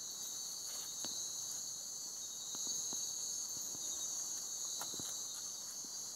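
Crickets chirping steadily in a high, unbroken chorus, with a few faint taps.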